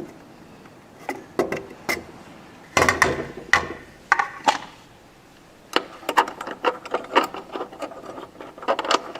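Irregular knocks and clanks of tools and parts being handled, some of them ringing briefly like struck metal. The busiest cluster is about three seconds in, and there is a short lull about five seconds in.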